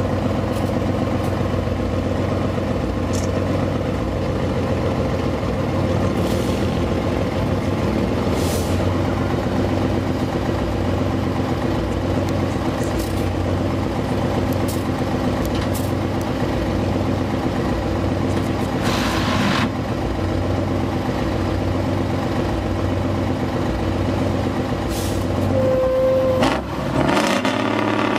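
Heavy trial truck's diesel engine running under load in deep mud and water, a steady drone. Near the end the note drops briefly and then climbs as the engine is revved hard.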